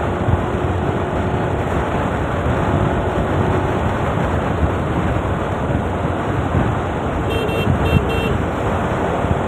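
Steady wind rush over the microphone and road noise from a motor scooter riding in traffic. About seven and a half seconds in, a vehicle horn gives a few short toots.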